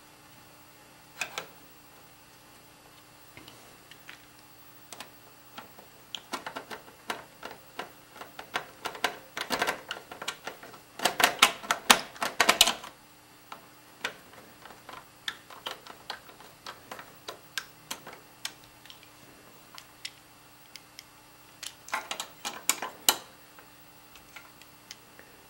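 Screws being turned into a new case fan through the steel rear panel of a computer case, with metal-on-metal handling: many short, sharp, irregular clicks, busiest about halfway through and again in a shorter run near the end.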